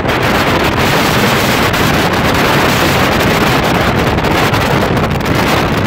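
Loud, steady wind rushing over the microphone aboard a small motorboat under way, mixed with the noise of the boat moving through the water.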